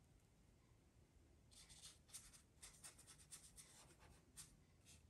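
Faint, scratchy strokes of a small paintbrush laying oil paint onto the painting, a quick run of short strokes starting about a second and a half in and stopping near the end.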